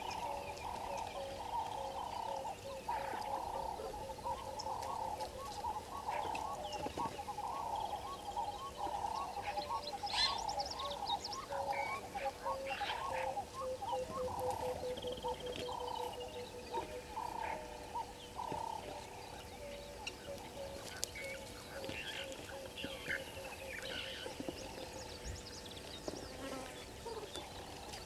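Frogs calling in a rapid, rhythmic chorus that fades out about two-thirds of the way in, with birds whistling short falling notes above it.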